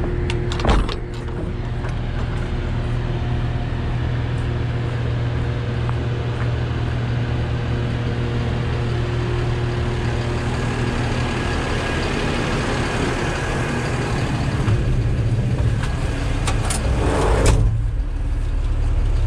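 Yard truck's engine running steadily under way, with a short knock about a second in and a brief rush of noise near the end.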